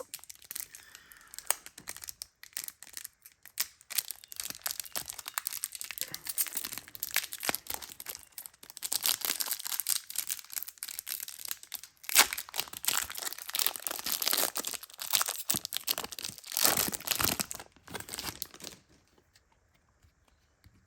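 Foil Pokémon booster pack wrappers crinkling and being torn open, a dense run of irregular crackles and rips that stops a couple of seconds before the end.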